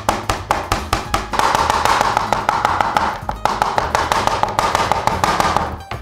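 Kitchen knife mincing beef on a cutting board, in quick, even chops that stop just before the end.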